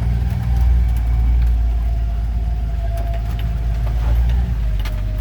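Steady low rumble of a four-wheel-drive vehicle's engine and tyres, heard from inside the cab while it drives slowly over rough, wet ground, with a few light taps.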